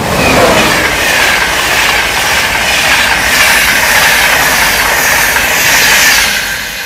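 East Coast electric express train passing through the station at speed: a loud rush of wheels on rail and air. It comes with a sharp drop in pitch about half a second in as the front end goes by, and a high whine that slowly falls, then fades near the end as the coaches clear.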